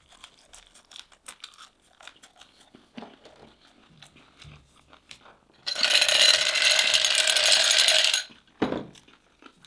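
Faint crunching clicks of eating, then a loud, rapid ratchet-like rattle lasting about two and a half seconds past the middle.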